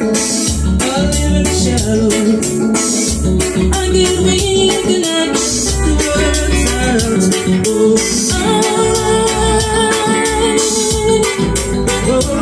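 Live band music: a woman singing into a microphone over keyboard and electric guitar, with bass and a steady beat.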